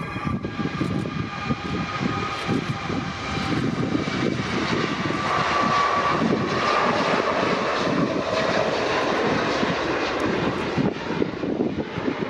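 Jet airliner passing close overhead. A rising rush of engine noise with a whine that slowly drops in pitch as it goes by, loudest a little past the middle, with some wind buffeting on the microphone.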